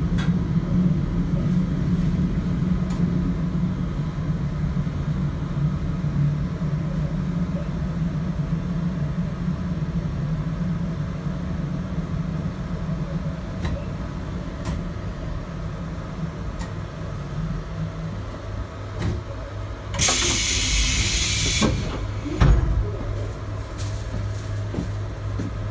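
A JR Hokkaido 721 series electric train running, its low running tone fading out as it slows. About twenty seconds in comes a loud hiss of released air lasting under two seconds, then a thump, and after that a steady low hum as the train stands.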